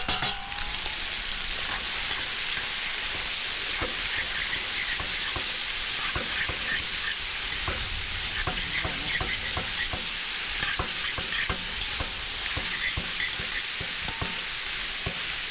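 Open wood fire crackling and hissing, with many small sharp pops scattered throughout.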